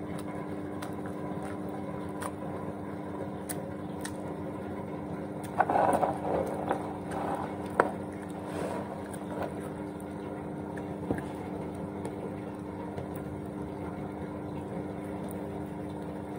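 Washing machine running in the background, a steady motor hum. Scattered crisp clicks and a louder stretch of crunching about six seconds in come from someone chewing crunchy fried fish close by.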